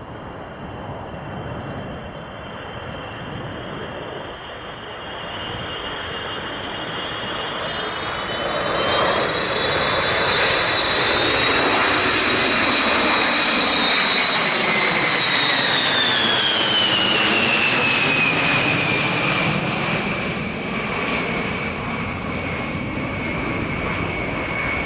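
B-52 Stratofortress bomber's eight jet engines flying past: the noise builds to its loudest about halfway through. A high whine in the jet noise then falls in pitch as the aircraft moves away.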